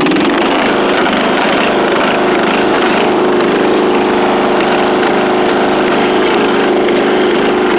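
Riding lawn mower's engine running loud and steady at an even speed through a custom exhaust.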